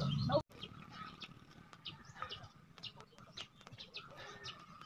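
Birds chirping in quick short high notes, several a second, over quiet outdoor background. Before that, a louder low hum cuts off abruptly about half a second in.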